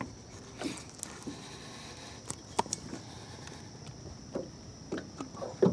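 Steady high-pitched insect chorus, with scattered light knocks and clicks from gear moving in a small fishing boat.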